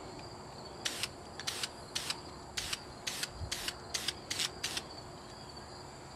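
Aerosol spray-paint can let off in nine quick short hisses, about two a second, misting paint onto a plastic kayak paddle blade.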